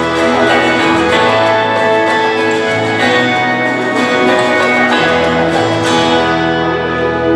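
Instrumental music led by guitar, with held notes over a steady low bass.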